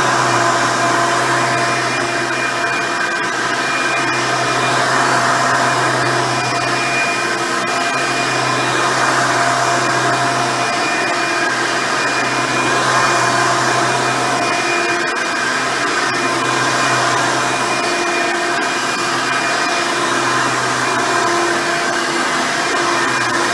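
A Hoover Elite 350 upright vacuum with a 7-amp motor and a dual-row brush roll runs steadily while vacuuming carpet. It gives a constant motor hum with a few steady higher whine tones over a rush of airflow.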